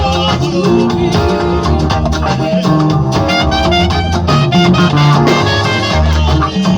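Loud music with a steady beat, a strong bass line and guitar.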